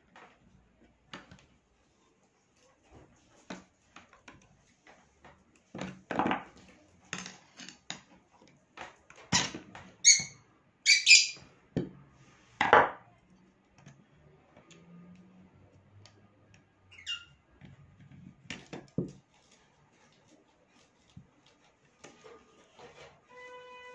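Clicks, knocks and clatter of pliers, a screwdriver and the metal parts of a Kimar toy pistol being handled and set down on a tabletop, busiest in the middle. A few short high squeaks are mixed in, and a steady pitched tone starts near the end.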